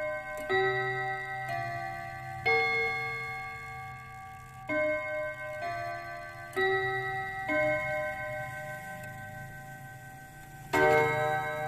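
Pendulum clock's hammers striking its metal chime rods, playing a chime melody. Notes come about a second apart in runs of three and four, with a pause between runs and a new note near the end. Each note rings on and overlaps the next.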